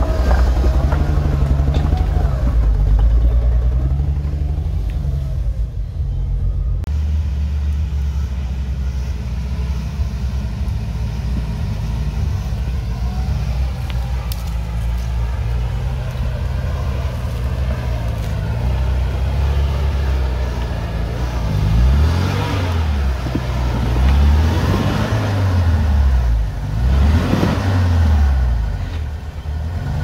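Off-road vehicle's engine running steadily at low revs while it is manoeuvred, then revved up and down several times in the last third.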